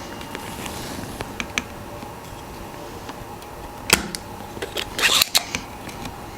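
Scattered small clicks and taps of a tool working against a mechanical keyboard's switch and plate while prying the switch loose. There are a few light ticks, a sharper click, and then a quick run of clicks near the end.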